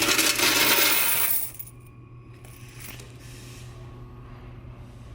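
Coins rattling and spilling together, loud for about the first second and a half, then stopping; a steady low hum runs underneath.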